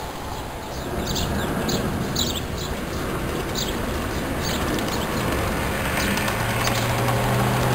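Small birds chirping, a run of short, sharp chirps through the first few seconds. From about six seconds in, a G-scale garden-railway train's motor and wheels hum and rumble steadily, getting louder as the train rolls past.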